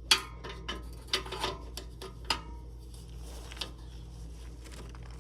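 Hand ratchet and socket clinking and clicking on a downpipe bolt: a handful of sharp metallic clicks with a short ring, the loudest right at the start, the rest spaced out over the following few seconds.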